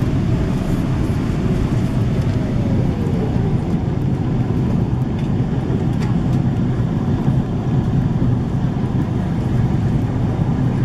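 Steady cabin noise inside a Boeing 777-300ER in descent: an even, low rush of airflow and its two GE90 engines, heard from a window seat over the wing. A faint tone slides down in pitch about two seconds in.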